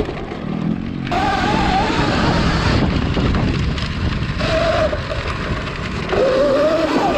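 72-volt Sur-Ron electric dirt bike ridden hard on a dirt track. The electric motor's whine comes and goes, rising and falling in pitch with the throttle, over steady wind rush on the microphone and knobby tyres churning dirt.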